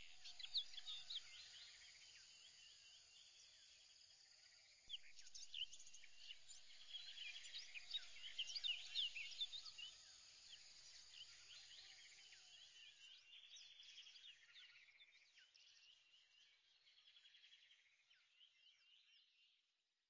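Faint birdsong: many short chirps and whistles overlapping, busiest about halfway through and fading away toward the end.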